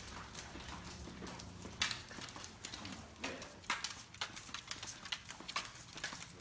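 A Great Dane's paws and claws clicking on a hard tiled floor as she walks: quiet, uneven steps about twice a second.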